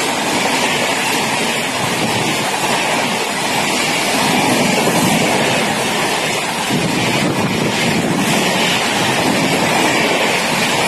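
Passenger train coaches passing close by at speed: a steady, loud rush of wheels on rail and moving air, with wind buffeting the microphone.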